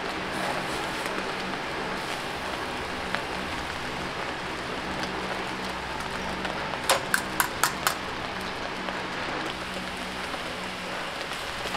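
Marinated bulgogi beef sizzling on a wire-mesh grill over a charcoal brazier, a steady hiss with a low hum beneath it. About seven seconds in, metal tongs clack sharply five times in about a second against the grill or the brazier rim.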